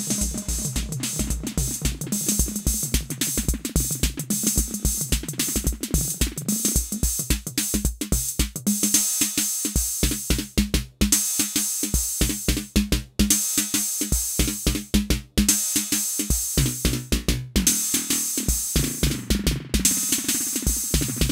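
Roland TR-06 Drumatix drum machine playing a steady electronic pattern of kick drum and bright hi-hats. From about a third of the way in, its onboard effects mangle the beat into a buzzing, pitched, stuttering sound with a few sudden short dropouts, before the plainer pattern returns near the end.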